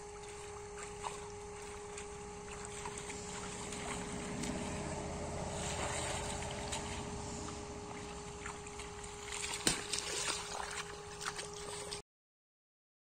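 Shallow muddy pond water splashing and sloshing as a woven bamboo basket fish trap is plunged into it and waded around, over a steady hum. The sound cuts out suddenly near the end.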